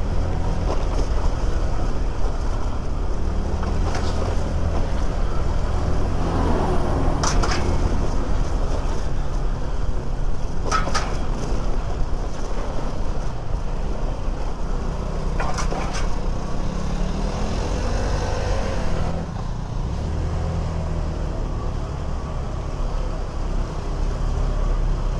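Riding noise from a Honda Click 125 scooter moving slowly through a traffic jam: a steady low engine hum and rumble, with other vehicles around. It eases off a little about two-thirds of the way through.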